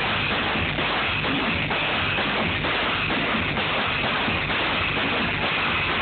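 Loud music playing steadily.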